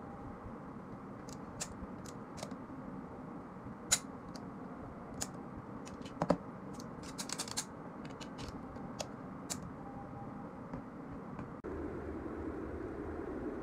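Scattered light metallic clicks and knocks of a TT 30 bore pistol being handled and wiped with a cloth over a table, with a sharper click about four seconds in, a heavier knock about six seconds in and a quick run of clicks soon after, over a steady low hum. Near the end the hum steps up louder and the clicks stop.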